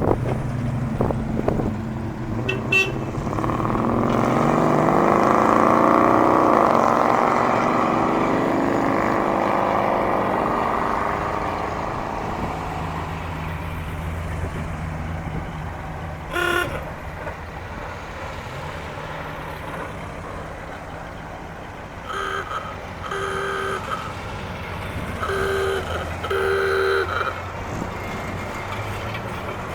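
Tractor engines running in a slow procession, one passing close and loud a few seconds in, its pitch sweeping as it goes by. Later a horn gives one short toot, then a run of about five short toots near the end.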